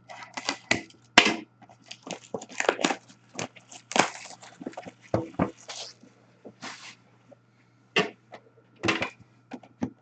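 Hockey card box being opened and its contents handled: an irregular run of tearing, rustling and scraping noises with sharp clicks.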